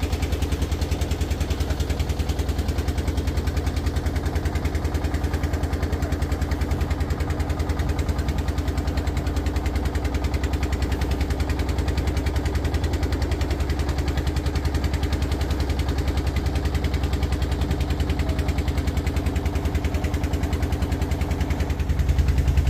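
A boat's engine running steadily, with a fast, even pulse and a deep low hum; it grows a little louder near the end.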